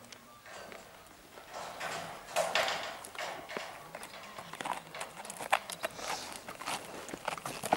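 Horses' hooves walking on a dirt and gravel track: irregular clopping steps with some scuffing, picking up about two seconds in after a quieter start.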